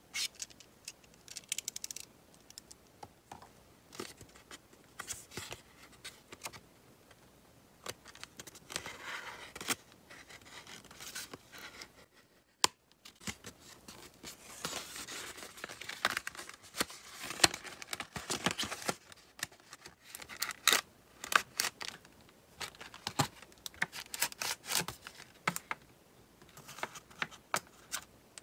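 Scrapbook paper pack being unwrapped by hand: a utility knife scratching through the plastic wrap, then plastic and paper crinkling and tearing as the card-backed pack slides out. Many sharp taps and clicks are mixed in, with longer stretches of scratchy rustling.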